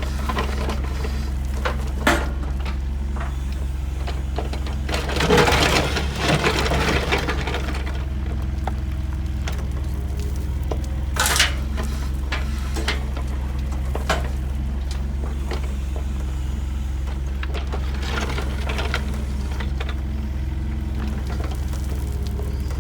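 A heavy construction machine's engine runs steadily with a low drone. Over it come scattered knocks and clanks: a couple of seconds of scraping and rattling about five seconds in, a sharp clank near the middle, and a rougher rattle later on.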